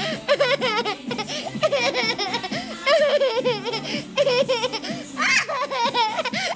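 A young girl laughing hard, in long peals of giggling with a rapidly wavering pitch that break off briefly a few times, rising to a higher squeal about five seconds in.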